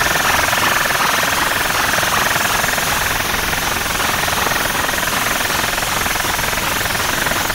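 Truck-mounted DJ sound system playing at close range, so loud that the recording overloads into a steady, distorted buzz with no clear tune.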